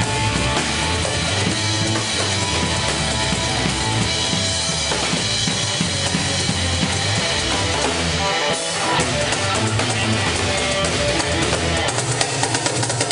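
Live instrumental band playing: drum kit, congas and hand percussion over electric guitar and electric bass. About two-thirds of the way in there is a short break, and near the end the drums pick up with fast, even strokes.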